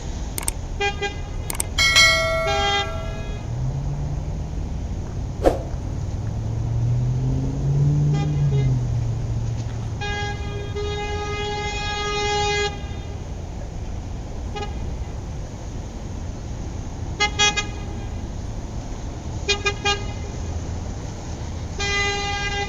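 A horn tooting several times: a short toot near the start, one long steady blast about ten seconds in, and shorter toots toward the end. Between these, a low hum rises and falls.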